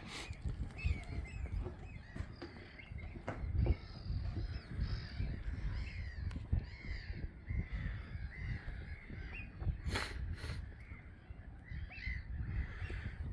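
A flock of gulls calling, many short overlapping calls, over a low rumble, with a couple of sharp knocks about ten seconds in.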